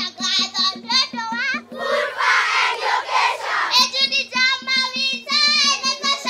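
A young girl sings a song through a microphone in short high phrases. For about two seconds in the middle, a large group of schoolchildren join in together. A quick, steady ticking beat runs underneath.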